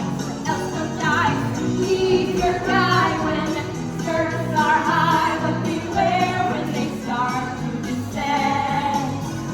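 Stage-show music with singing: sung melody over a bass line.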